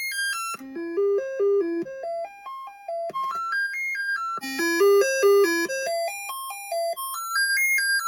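Commodore 64 SID sound chip playing a diagnostic cartridge's test tune: quick stepped synthesized notes in several voices, running up and down in repeated patterns, cutting off abruptly at the end.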